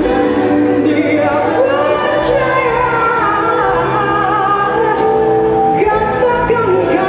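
Live band music: a woman sings a melody into a microphone over drums and electric bass.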